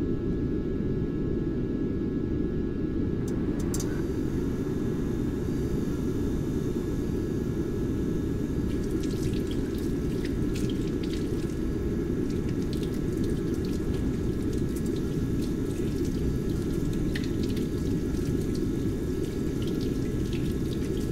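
Steady low rumbling drone, with water running from a tap into a sink and faint splashes and drips on top as hands are washed under it, busiest in the second half.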